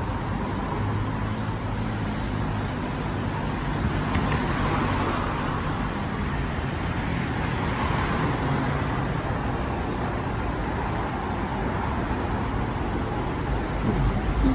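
City road traffic: a steady hum of car and bus engines and tyres, swelling a few times as vehicles pass.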